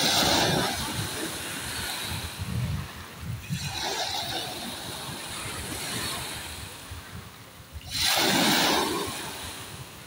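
Sea waves washing and rushing, with a loud surge at the start, a smaller one a few seconds in, and another loud surge about eight seconds in, over a low rumble.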